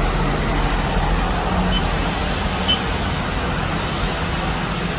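Steady road traffic noise from a city bus and a motorbike passing on a wet road, an even hiss over a low rumble.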